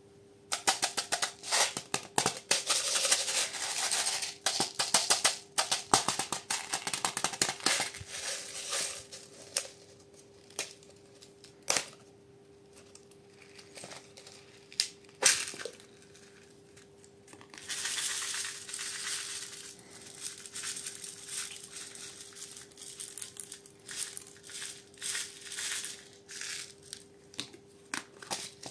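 Small silver beads poured from a plastic cup, rattling and clicking as they pour against the cup and onto slime in a glass tray. They come in dense runs of clicks with sparser clicks between. A faint steady hum sits underneath.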